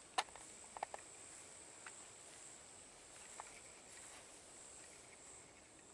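Faint steady chorus of night insects such as crickets, with a few light clicks in the first few seconds.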